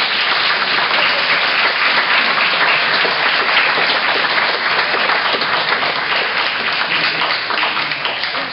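Audience applauding, dense and steady, fading near the end.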